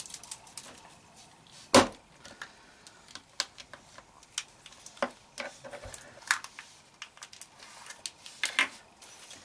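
Thin chocolate shell of a Kinder Surprise egg being cracked and broken apart by hand: scattered sharp snaps and small pieces clicking onto a table, the loudest crack about two seconds in. Near the end, a quick cluster of clicks as the plastic capsule inside is prised open.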